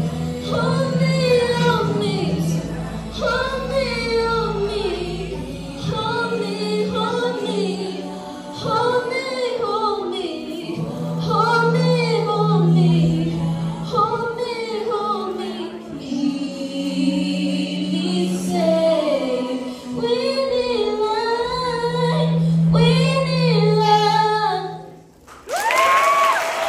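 A choir singing a cappella, a melody over low held notes. The song stops just before the end, and applause breaks out.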